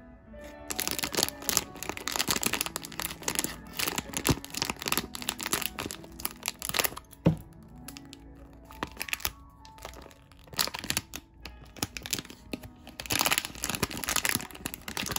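Metallic foil blind-box pouch crinkling and crackling as it is crumpled and torn open by hand. The crackles come in irregular bursts, with one sharp crack about seven seconds in. Background music plays underneath.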